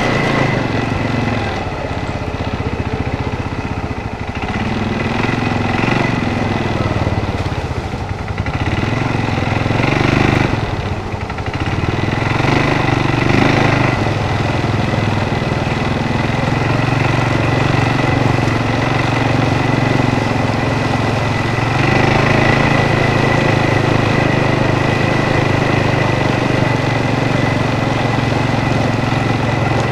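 ATV engine running while riding, its pitch rising and falling with the throttle in the first half, then holding steady.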